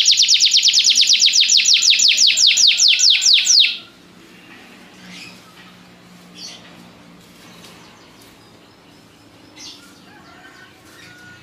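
Domestic canary singing a fast trill of repeated sweeping high notes, about ten a second, that stops abruptly a little under four seconds in. After that only a few faint short chirps.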